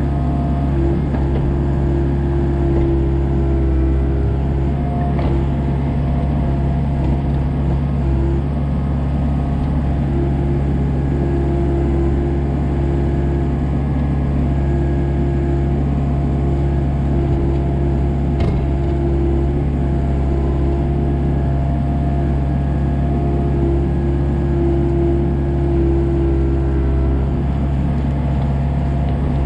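Komatsu excavator's diesel engine running steadily, with a couple of faint knocks.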